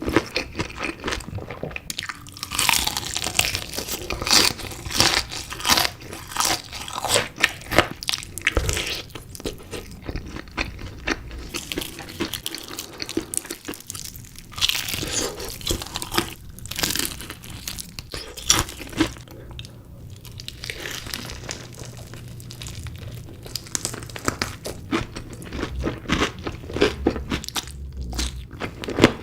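Close-miked eating of chicken pieces: bites and chewing, a dense run of sharp crunches with a few quieter stretches between mouthfuls.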